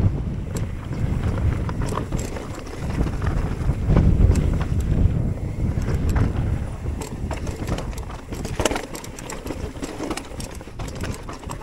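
Wind buffeting the microphone as a mountain bike rolls down a rocky trail, with sharp clicks and rattles from the bike and its tyres on stone that grow busier in the second half.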